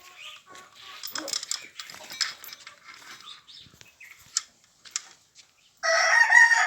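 Scattered light clicks and faint animal noises, then about six seconds in a rooster starts crowing loudly.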